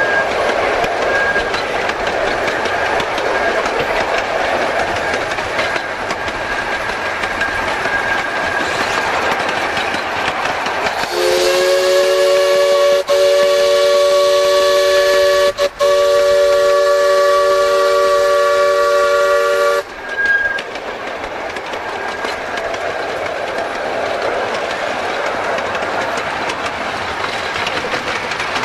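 Small live-steam locomotive of a 15-inch gauge railway running along the track with a steady running noise. About eleven seconds in, its steam whistle sounds a chord of several notes that slides up at the start, breaks briefly twice and cuts off after about nine seconds.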